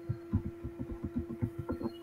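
Computer keyboard being typed on in quick, irregular keystrokes, each a short dull thud, over a steady electrical hum.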